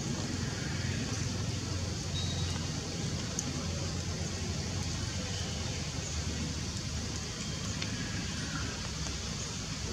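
Steady low background rumble with an even hiss over it, and a few faint short chirps and ticks.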